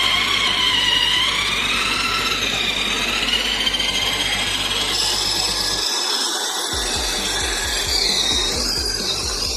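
Drill-powered spiral wood chipper running, the drill motor's whine wavering up and down in pitch as it works.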